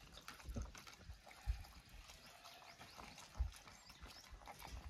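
A dog chewing its food and crunching chicken bones: faint scattered clicks with three slightly louder knocks.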